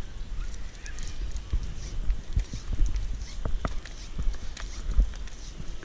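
Climbing rope being pulled in hand over hand and dropped on the rock: irregular light knocks and rustles as the rope runs and slaps, with wind rumbling on the microphone.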